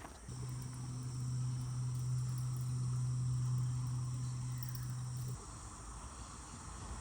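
Crickets or other insects chirping steadily, with a steady low hum that starts just after the beginning and stops suddenly about five seconds in.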